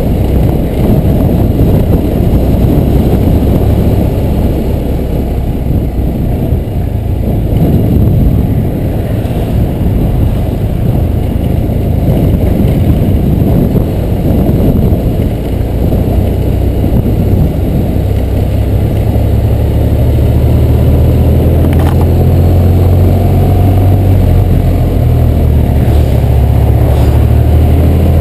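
BMW R1200R boxer-twin motorcycle riding along a road, with heavy wind rumble on the microphone over the engine. Past the middle the engine settles into a steady drone.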